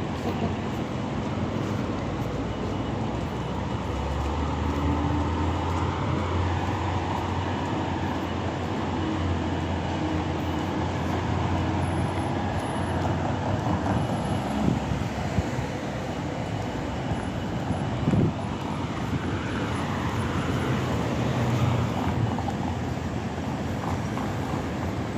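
Steady city traffic noise: a continuous hiss of passing cars with a low engine rumble, strongest from about four to sixteen seconds in, and one brief thump about eighteen seconds in.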